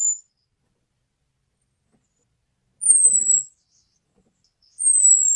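Orange-headed thrush giving its 'cuit' call: a thin, very high whistle that falls slightly in pitch and lasts under a second. It comes about every two seconds, with one call ending just after the start, one about three seconds in, and one beginning near the end.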